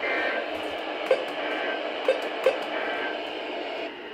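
NOAA Weather Radio's end-of-message data bursts, heard through a weather radio receiver over steady static hiss. There are three short warbling two-tone bursts about a second apart, marking the end of the required weekly test, and a few sharp crackles of static.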